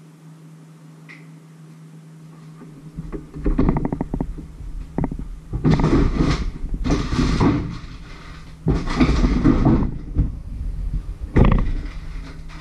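Rummaging in a low kitchen compartment: a quick rattle as something slides out, then several bouts of knocking and shuffling, ending in a sharp loud knock. The plastic bag of vegetables he takes out crinkles as it is handled. A low steady hum runs underneath.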